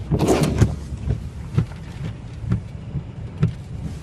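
Tornado wind buffeting a pickup truck, heard from inside the cab: a steady low rumble with a noisy gust at the start and knocks about twice a second.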